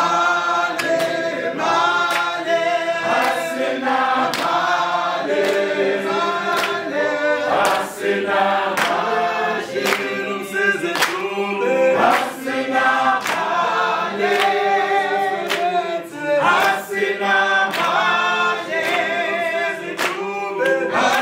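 A group of men and women singing together unaccompanied, with hand claps keeping time.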